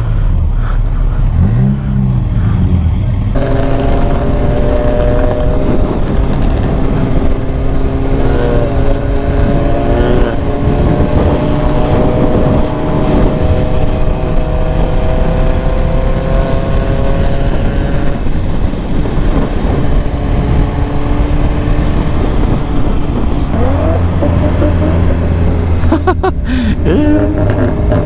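Motorcycle engine under way with heavy wind rush: the engine pitch rises in short bursts of throttle early on, then holds a steady, slowly climbing drone at cruising speed, with more throttle changes near the end.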